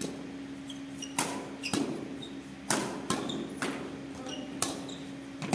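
Badminton rally: a string of sharp racket hits on the shuttlecock, about eight in five seconds, some coming quickly one after another, over a steady low hum.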